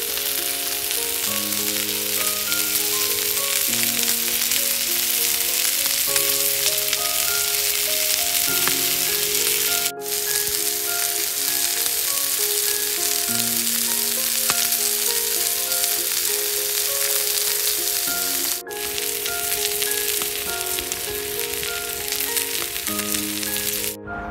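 Meat and vegetables sizzling on a round griddle pan over a wood fire: a loud, steady frying hiss that breaks off sharply about 10 and 19 seconds in and stops near the end. Slow background music plays underneath.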